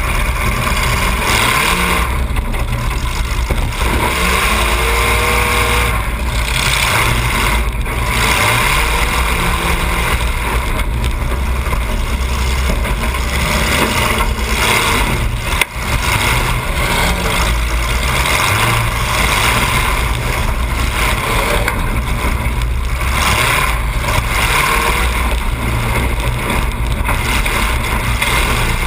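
Demolition derby car's engine running loud, heard from the car itself through a hood-mounted camera, with one sharp click about halfway through.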